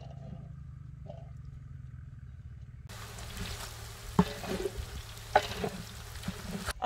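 Chopped onions sizzling in hot oil in a large metal degchi, being fried until golden, while a wooden spatula stirs them with scrapes and knocks against the pot. The sizzle comes in about three seconds in, after a low steady hum.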